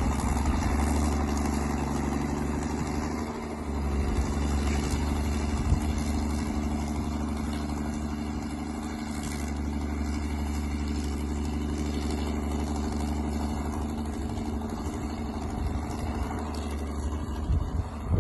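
An engine idling steadily, with a few knocks near the end.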